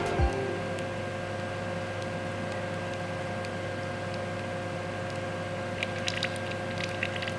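Mill-it-Mini CNC milling machine running steadily as it machines an aluminium part, a constant hum with a steady whine, and scattered light ticks in the last second and a half.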